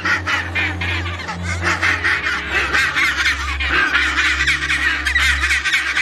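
Penguin colony calling: many birds' overlapping honking calls at once, a dense, loud chorus that cuts off suddenly at the end.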